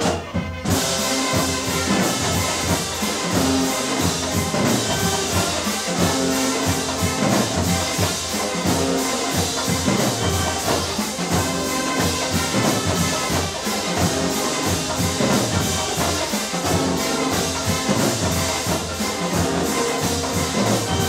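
Marching band playing: the brass section carries the tune over the drumline's steady beat.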